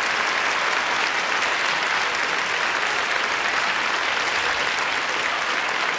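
Audience applauding steadily, a dense, even wash of clapping.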